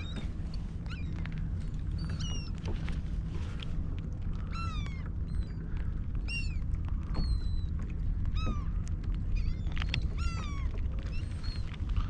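A flock of seagulls calling around the kayak, many short downward-slurred cries overlapping one another, over a steady low rumble.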